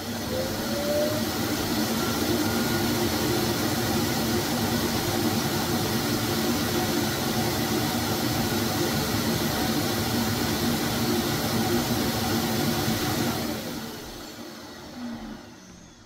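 Self-emptying dock of a Proscenic M8 Pro robot vacuum running its suction motor, a loud steady whir as it pulls the dirt out of the docked robot's bin into the dock's dust bag. It starts up, runs steadily for about thirteen seconds, then winds down and fades out over a couple of seconds.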